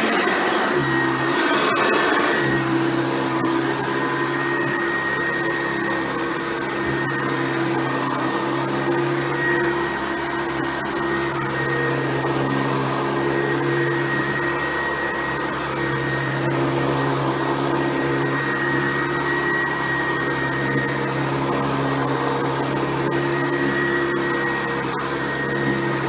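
Hoover Convertible U4349 upright vacuum cleaner running steadily, a constant motor whine and hum with a high tone on top.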